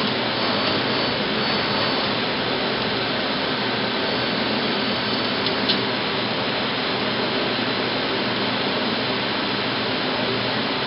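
Mazak Multiplex 6200Y CNC lathe running with its turrets and spindle traversing: a steady machine whir with a faint hum under it. There is one light click a little past halfway.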